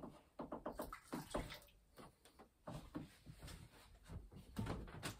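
Small objects being handled on a work bench: an irregular run of light clicks, taps and knocks, with a quick cluster about a second in and scattered ones after.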